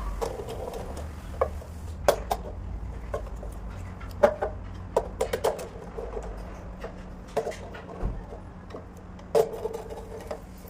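Scattered, irregular knocks and clicks, some with a short hollow ring, over a steady low hum.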